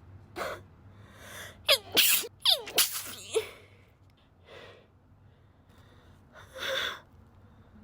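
A woman's stifled sneezes: a quick cluster of short, held-in sneezes with voiced catches that fall in pitch, loudest between about two and three and a half seconds in. A couple of softer breaths follow.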